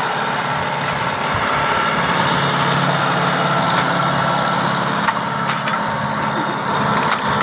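Kubota tractor's diesel engine running steadily while it pulls a disc plow through the soil, with a few light clicks in the last couple of seconds.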